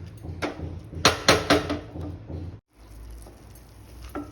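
A cooking utensil knocking against a pot on the stove, four sharp knocks in quick succession over a low steady hum. The sound breaks off abruptly about two and a half seconds in, followed by a quieter low rumble and a single knock near the end.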